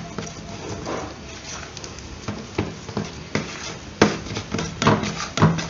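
White plastic spoon stirring and scraping a thick fish-bait dough in a plastic bowl, with irregular knocks of the spoon against the bowl; the sharpest knock comes about four seconds in.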